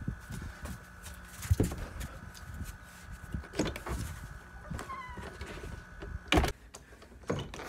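Quick footsteps on a porch, then a door's brass knob jiggled and the glass-paned French door opened, with scattered knocks and a few short squeaks. A loud thump comes about six and a half seconds in, with a smaller one just before the end.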